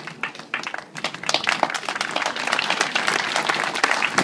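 Crowd applauding. Scattered hand-clapping swells into fuller, steady applause about a second in.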